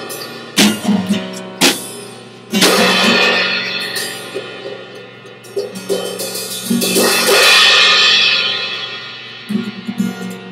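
Live drum kit and guitar closing a rock song. A few sharp drum hits come in the first seconds over a held guitar note. Two loud cymbal crashes follow, one about a quarter of the way in and one about two-thirds in, each washing and ringing, and the sound dies away near the end.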